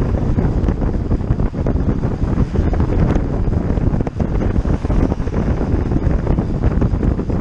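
Wind buffeting the microphone of a rider moving at speed: a loud, dense rumble with no breaks.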